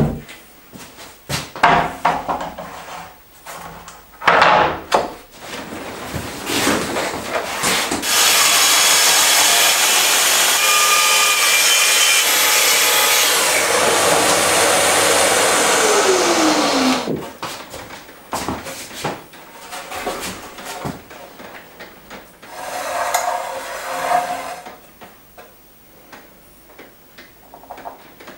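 Plunge-cut track saw running along a guide rail for about nine seconds, ripping the waney sapwood edge off a rough-sawn oak board, its motor whine falling as it winds down. Knocks from the boards and rail being handled on the workbench come before and after the cut.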